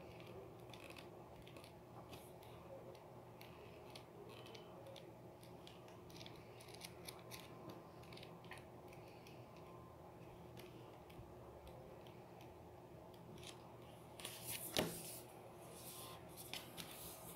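Faint rustling and flicking of paper pages as a softcover book is leafed through, with a louder rustle of pages a few seconds before the end.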